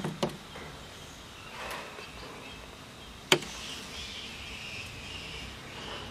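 A metal spoon clinking against spice containers: a few light clicks at the start, then one sharp clink about three seconds in. A faint high chirring runs underneath after the clink.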